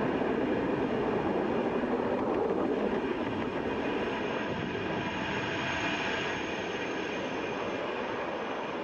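Falcon 9's nine Merlin 1D engines during ascent, a steady dense rocket roar that eases slightly after about three seconds as the vehicle climbs away.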